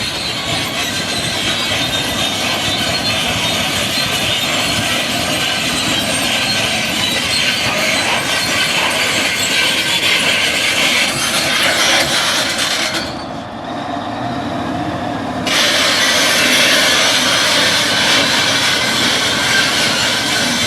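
Steady, loud mechanical noise with a strong hiss, dulled for about two seconds near the middle before returning to full loudness.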